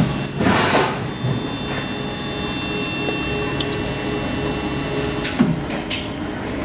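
Steady machine hum with a thin high-pitched whine above it, broken by a few short rushes of noise near the start and again about five seconds in.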